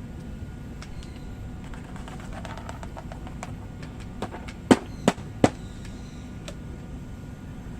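Elongated tortoises feeding and moving about: scattered small clicks and taps, with three sharp knocks close together a little past halfway.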